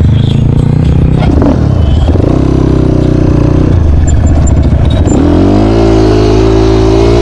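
250 cc dirt bike engine running under throttle while being ridden, its pitch dipping and rising, then climbing about five seconds in and holding higher as the bike accelerates.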